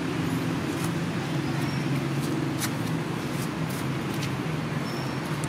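Steady low engine hum running evenly throughout, with a few faint clicks over it.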